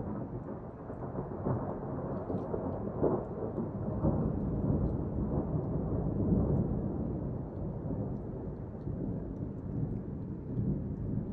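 Thunder rolling in one long low rumble that builds over the first few seconds, swells again about six seconds in, then slowly dies down.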